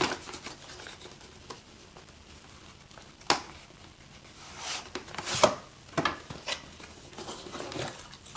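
Small cardboard box and its plastic packaging handled and opened by hand: scattered clicks and short rustles, with a sharp tap about three seconds in.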